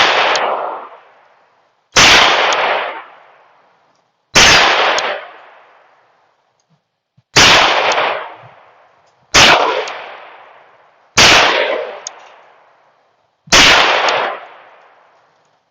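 Taurus PT92 9 mm pistol firing single shots at a slow, uneven pace, about one every two seconds. Each sharp report trails off in about a second of echo, and the first shot lands right at the start.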